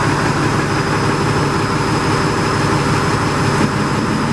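International Harvester 350 Utility tractor's engine running steadily at a low, even speed.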